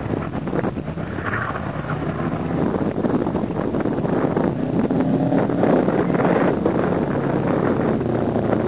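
Car engine revving hard and easing off as the car runs an autocross cone course, growing louder after a few seconds.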